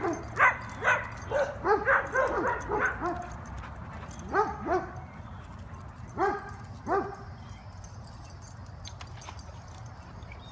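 A dog barking in short, sharp barks: a quick run of them in the first three seconds, then two pairs about four and six seconds in, then it stops.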